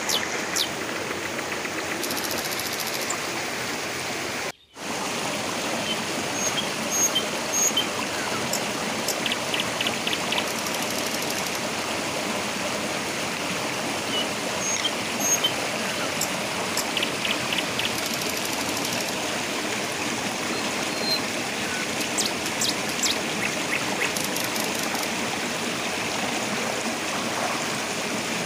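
Small river rushing steadily over rocks, with short high chirps now and then above the water. The sound drops out for a moment about four and a half seconds in.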